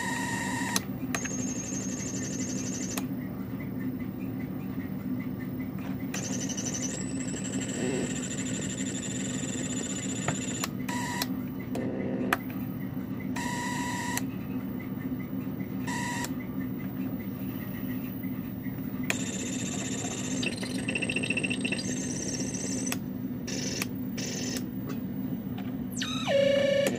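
Homemade electronic noise synthesizer putting out a steady low buzzing drone, with high-pitched tones and hiss that switch on and off abruptly as its knobs and toggle switches are worked. Near the end a tone sweeps steeply downward and the sound gets louder.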